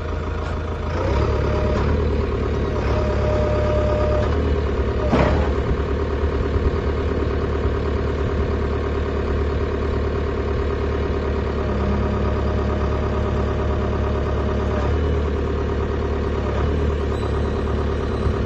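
Engine of a JCB 3CX dual-fuel CNG backhoe loader running steadily, getting a little louder about a second in, with a single sharp knock about five seconds in.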